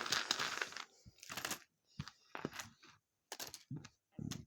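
Board game components and plastic packaging being handled: a rustle, then a string of short crackles and clicks.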